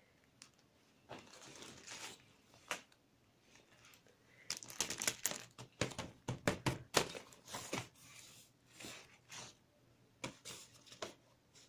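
Crinkly fabric cat play tunnel rustling and crackling in irregular bursts as a cat scrambles about inside it, busiest a little before halfway through and again near the end.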